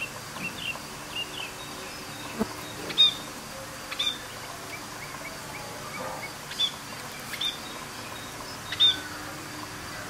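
Budgerigars chirping: short, high chirps scattered throughout, with a few louder, sharper calls about three, four, six and a half and nine seconds in.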